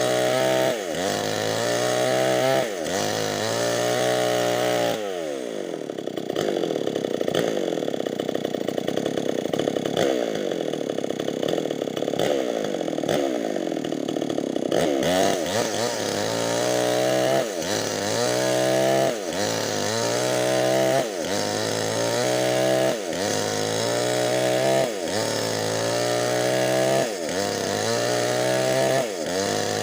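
Nixon chainsaw with a 25-inch bar cutting lengthwise through medang wood. The engine pitch drops sharply under load and climbs back again and again, roughly every one to two seconds. From about five to fifteen seconds in it holds a lower, labouring pitch under steady load.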